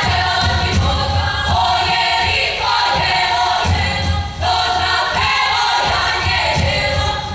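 A group of singers performs a traditional Serbian folk song in short phrases of held notes that step from pitch to pitch. Low thuds repeat underneath in a steady rhythm.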